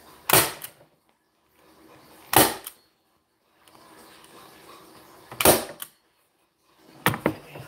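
Hand staple gun firing staples through upholstery fabric: three sharp clacks about two to three seconds apart, then a quick cluster of smaller clicks near the end.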